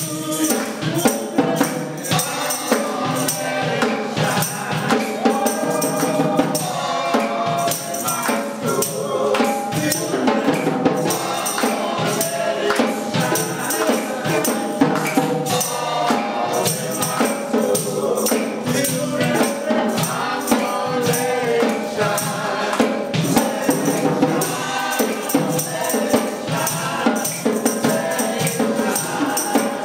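Church congregation singing a gospel song, with a tambourine shaken to a steady beat.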